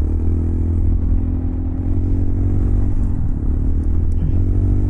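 Honda Monkey 125's single-cylinder four-stroke engine running under way, heard from the rider's seat. The engine note dips and climbs again twice, about three seconds in and near the end. The rider says the freshly repaired clutch is still slipping a little.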